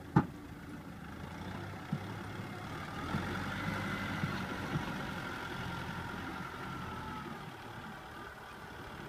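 Tractor engine running steadily as it pulls a loaded trailer, with a higher whine joining in about three seconds in and easing off near the end. A sharp knock just after the start and a few lighter knocks come from the tractor and trailer rig.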